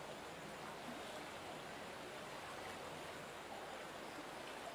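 Muddy floodwater flowing after heavy rain: a faint, steady rush of water.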